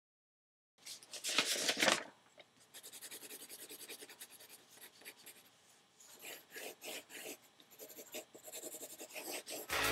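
Pen scratching on paper: a louder scribble about a second in, then runs of quick, short strokes with brief pauses. Music comes in right at the end.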